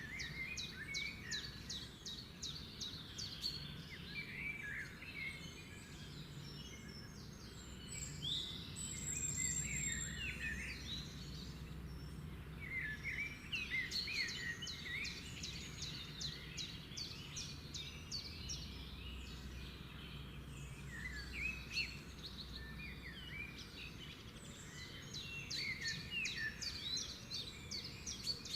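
Birds chirping and calling, with quick trills of rapid chirps that come in clusters every several seconds over a steady low background hum.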